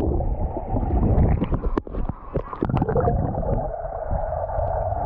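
Muffled underwater sound picked up by an action camera held beneath the surface of a swimming pool: a dense low rumble and gurgling with many scattered short clicks from bubbles and water movement.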